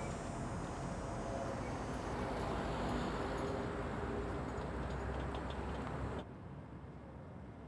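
Steady rumble and hiss of a vehicle on the move, which cuts off abruptly about six seconds in.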